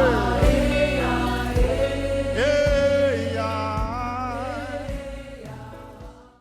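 Gospel worship song: long held sung notes over a sustained low accompaniment, fading out near the end.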